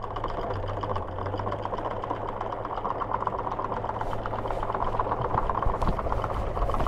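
Catamaran's electric anchor windlass switching on abruptly and running steadily: a motor hum under a dense, fast rattle of anchor chain running over the gypsy as the anchor is let go.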